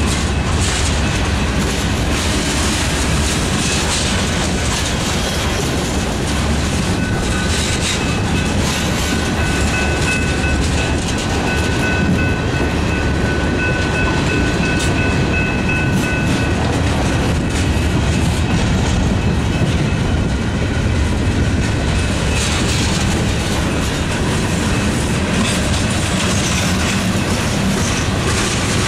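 Freight train of covered hoppers and tank cars rolling past close by: a steady rumble and the clickety-clack of wheels over rail joints. A thin, steady squeal rides over it from about a quarter of the way in until a little past the middle.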